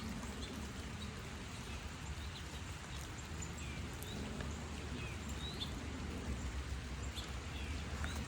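Chickens giving scattered short, high chirps and calls over a low steady rumble.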